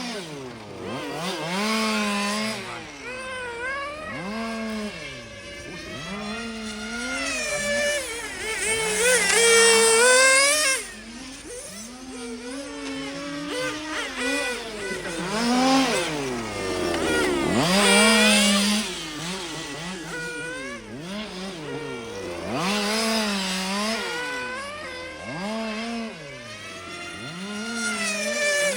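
Small two-stroke petrol engines of 1:5-scale RC cars on a track, revving up and dropping off over and over as the cars accelerate, brake and pass by, at times more than one at once.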